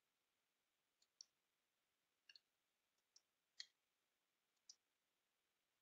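Near silence with about five faint, sharp clicks at irregular intervals, a pair of them close together in the middle.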